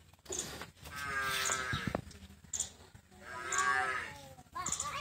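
Cow mooing twice, each call a long drawn-out low moo of over a second.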